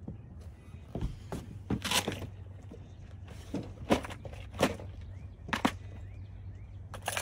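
Irregular knocks and clacks, about eight spread over several seconds, from someone moving about on a wooden dock and handling fishing tackle, with a faint steady low hum underneath.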